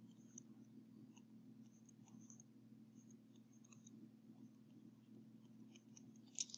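Near silence: a low steady room hum with faint, scattered clicks and scratches of handwriting with a stylus on a screen, and a couple of slightly louder clicks near the end.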